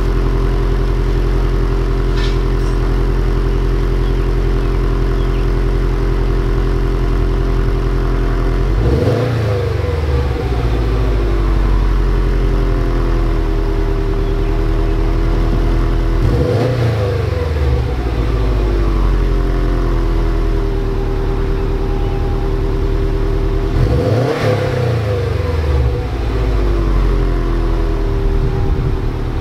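Stock 2018 Subaru WRX STI with its turbocharged EJ flat-four boxer engine, heard through its factory quad-tip exhaust with the engine warmed up. It idles steadily, then is revved three times, about seven to eight seconds apart, toward 2,500–4,000 rpm. Each rev rises quickly and falls back to idle.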